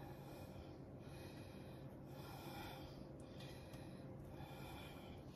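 Faint, soft scraping of a silicone spatula spreading dry, crumbly cake-mix topping across a ceramic baking dish, in a few short strokes.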